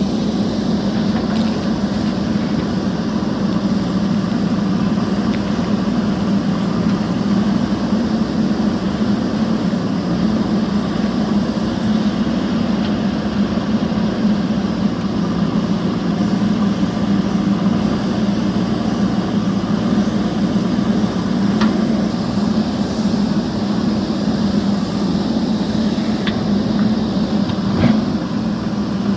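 JCB backhoe loader's diesel engine running steadily under working load, with a few short knocks in the last third.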